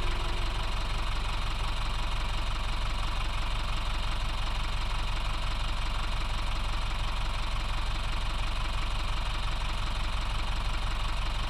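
Deutz Intrac 2003 tractor's air-cooled diesel engine idling steadily with an even diesel clatter.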